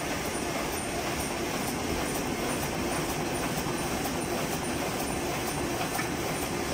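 Roll-to-sheet cutting machine for self-adhesive sticker paper running: a steady mechanical hum with a fast, regular ticking as the web is cut into sheets.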